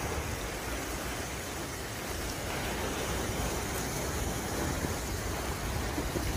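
Choppy water washing and lapping against the rocks at the edge of a concrete jetty, a steady wash of surf, with wind rumbling on the microphone.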